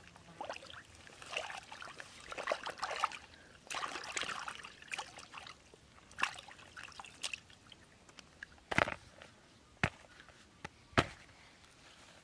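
Water sloshing and trickling as a woven bamboo basket is dipped and moved in shallow river water, in uneven splashes over the first few seconds. Later, three short sharp knocks stand out, the loudest sounds.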